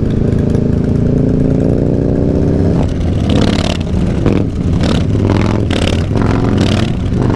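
Harley-Davidson Dyna Low Rider S's air-cooled V-twin engine accelerating, its pitch rising steadily for about three seconds. After that, wind buffets the microphone in repeated gusts over the running engine as the bike picks up speed.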